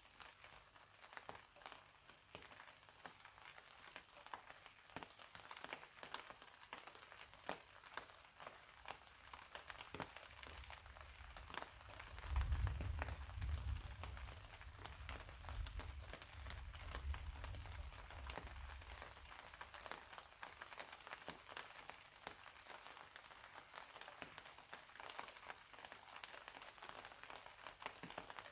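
Steady rain with many separate drops clicking close by. About twelve seconds in, a low rumble of distant thunder swells and lasts around seven seconds before fading back into the rain.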